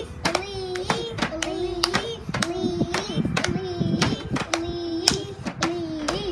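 Children singing a clapping song while clapping their hands in a steady rhythm, about three claps a second.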